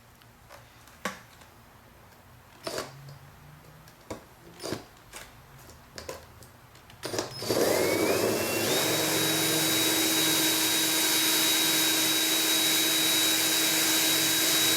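A few light clicks and knocks, then about halfway through a cordless drill spins up. Its whine rises for a moment and then holds steady as it turns a sharpened brass tube that cores out a stock hinge from a model airplane's tail surface.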